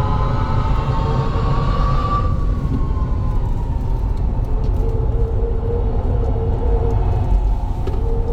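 Hyundai Ioniq 5 N at speed on a circuit, heard from inside the cabin: a heavy rumble of road and tyre noise under a whining drive tone that climbs, then falls away about two seconds in as the car slows off the power, and a steadier tone picking up again later.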